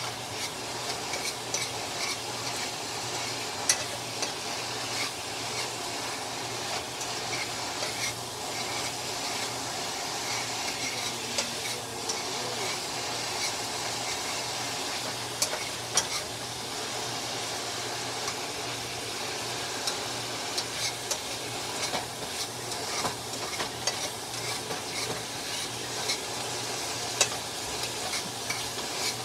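Diced chicken sizzling as it fries in a frying pan, stirred with a utensil that scrapes and clicks against the pan a few times.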